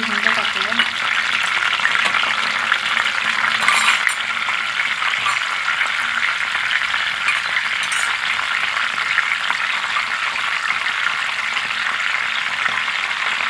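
Curry leaves, cumin and mustard seeds sizzling and crackling in hot oil in a kadhai: the tempering (tadka) at the start of a curry. The sizzle is steady, with a couple of sharper pops about four and eight seconds in.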